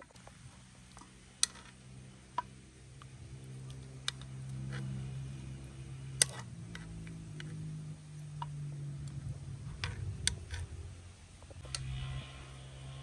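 A metal spoon clinking against a cooking pot while stirring, about six sharp clinks spread over the stretch, over a steady low hum.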